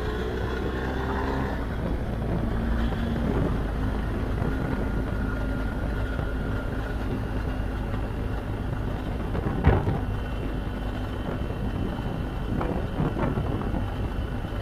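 BMW R 1250 GS Adventure motorcycle's boxer-twin engine running at a steady speed on the move, with wind noise over the microphone. A single sharp thump comes about ten seconds in.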